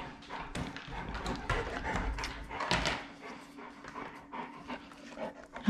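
A St Bernard panting during a nail trim, with scattered small clicks and rustles of handling; the noise is busier in the first three seconds, then quieter.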